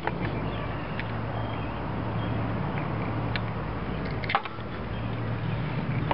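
Screwdriver clicking against metal as an ignition switch is worked loose from a garden tractor's dash. There is a sharp click a little past three seconds and a louder one just after four seconds, over a steady low hum.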